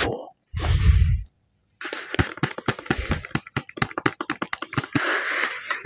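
Fingernails tapping quickly and unevenly on a brown cardboard mailer, as an ASMR tapping trigger, after a low muffled thud at the start; near the end the tapping gives way to a scratchy rubbing on the card.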